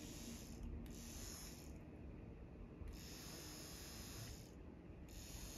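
Small battery motor of a handheld candy fan toy whirring faintly as it spins a plastic propeller. It stops for about a second and a half, then starts again, with a short break near the end.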